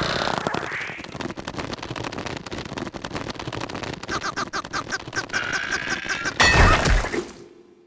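Cartoon sound effects of rapid rattling and clattering, with quick chirpy squeaks partway through, ending in one loud crash with a deep rumble that dies away.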